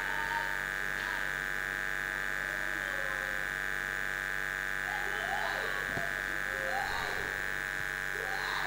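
A steady high-pitched electrical buzz, unchanging in level, with faint distant voices underneath now and then.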